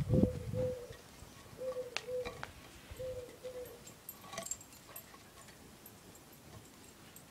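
A pigeon cooing in soft paired notes, the pairs repeating about every second and a half and stopping about four seconds in. A brief low rumble comes right at the start, and a few sharp ticks fall around the middle.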